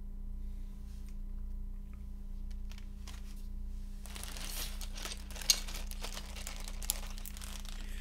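Plastic packaging crinkling as it is handled, starting about halfway through, with a sharp click about a second later, over a low steady hum.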